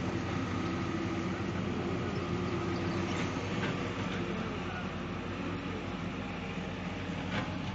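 Heavy diesel engines running steadily, a hydraulic excavator working as it digs river sand beside a tipper truck, with a few short knocks around the middle and near the end.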